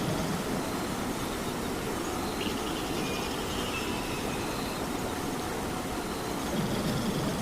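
Steady rain hiss with a sleeping cat's low, rumbling snore underneath, one breath swelling louder near the end.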